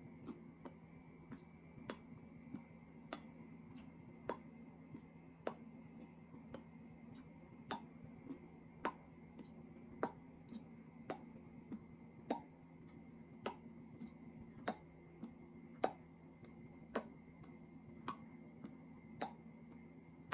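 Faint, evenly spaced clicks, a little under two a second, alternating stronger and weaker like a tick-tock, over a steady low hum.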